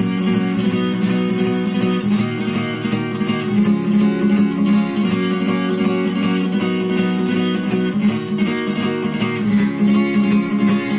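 Acoustic guitar strumming steady chords in an instrumental break of a song.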